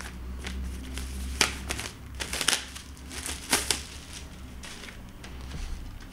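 Plastic cellophane wrapping crinkling in several short, irregular bursts as a vinyl LP is pulled out of it.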